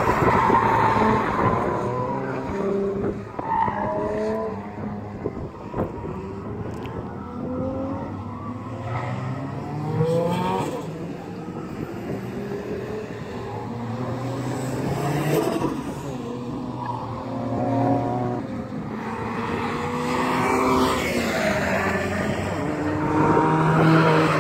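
Hyundai Avante (Elantra) sedan's engine revving up and easing off again and again as it is driven hard around a cone course, with tyres squealing in the turns. Louder near the start and again near the end.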